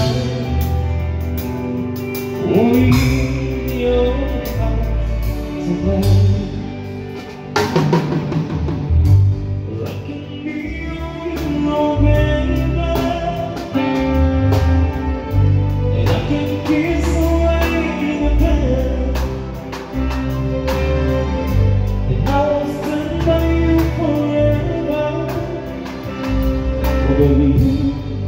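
A live band playing a song: drum kit, bass guitar and keyboard, with a heavy bass line and singing over them.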